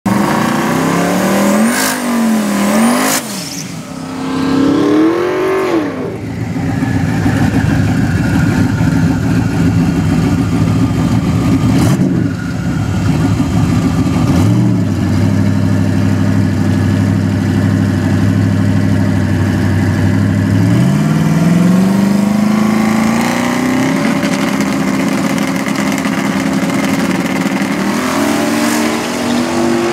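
Early-1970s Chevrolet Nova drag car's engine, revved in quick blips and then held at high revs for several seconds through a tyre-smoking burnout. It then drops to a steady lower note, climbs to a held higher rev, and is blipped again near the end as the car stages.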